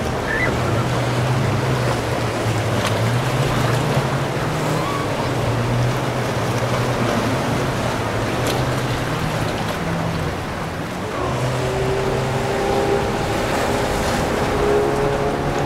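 Motorboat engines running over the rush of waves and wind. A second, higher engine tone comes in about two-thirds of the way through.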